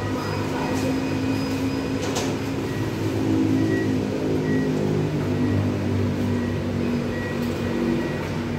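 Self-service card replacement machine running, its motors whirring steadily with shifting low tones, and one sharp click about two seconds in.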